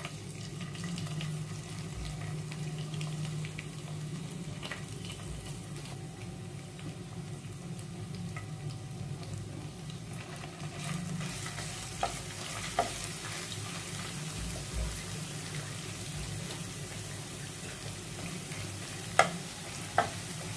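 Ginger-garlic paste sizzling as it fries in hot oil in a nonstick pan while it is stirred with a spatula; the sizzle grows stronger about halfway through. The spatula knocks sharply against the pan four times in the second half.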